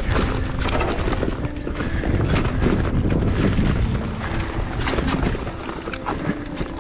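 Wind buffeting the microphone and a mountain bike rattling over a rough trail, with many small clicks and knocks. Music plays faintly underneath.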